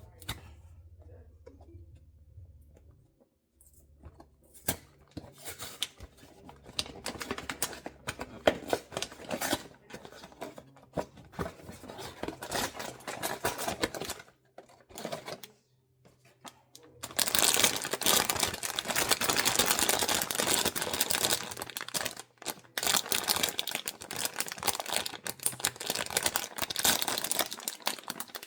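Blind-box packaging being handled and opened: irregular crackling, tearing and crinkling of the box and its wrapping. It starts a few seconds in and gets louder and more continuous past the middle.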